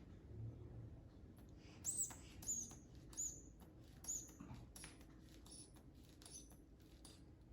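A handful of short, high-pitched animal chirps, each brief and sharp, spaced irregularly from about two seconds in, over faint clicks.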